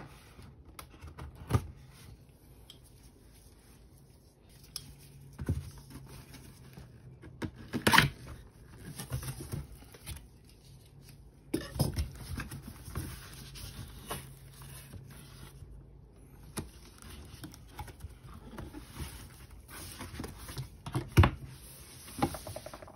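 Hands unpacking a boxed RC car: packaging rustling and being handled, with scattered clicks and knocks, the sharpest about eight seconds in, near the middle and near the end.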